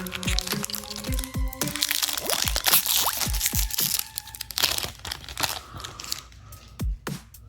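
Foil trading-card pack wrapper crinkling and crackling as it is handled and torn open, dying down about five seconds in. Electronic background music with a regular kick drum plays underneath.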